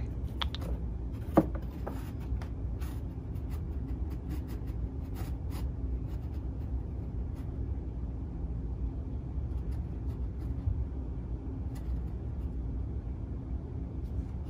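Steady low room hum with faint scattered ticks and one sharp click about a second and a half in.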